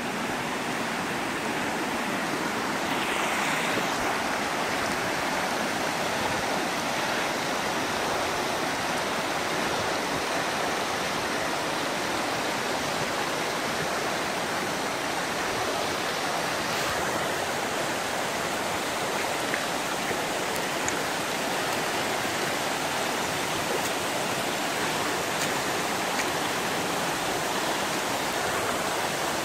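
Steady rushing of a waterfall and the water running below it, an even noise that holds at one level throughout.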